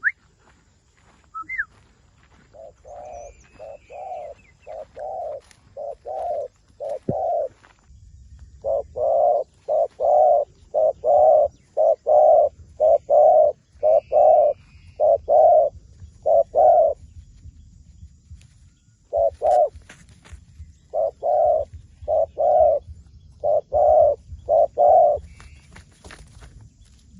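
Dove cooing: three long runs of low, even coos, a little under two a second, with short pauses between the runs. It is a decoy dove calling to draw wild doves down to the trap.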